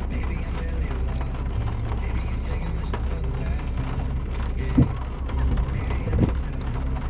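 Off-road vehicle driving over rough ground: a steady low engine drone with the body creaking and rattling, and two sharp knocks about five and six seconds in. Music plays along underneath.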